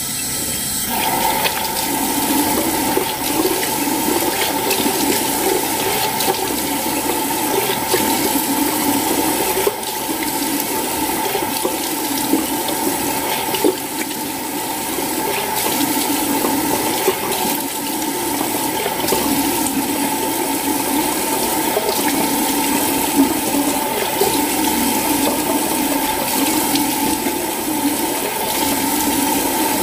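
Bathroom water running steadily, a constant rushing with a steady tone in it, while a face is washed and rinsed under it.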